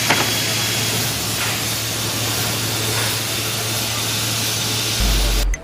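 Double end tenoner running, a steady loud hiss over a low hum with a few faint knocks, cutting off abruptly near the end.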